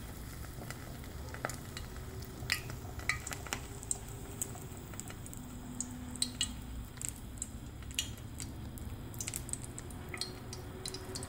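A potato-and-egg maakouda patty frying in shallow oil in a frying pan: a steady sizzle with scattered small crackles and pops.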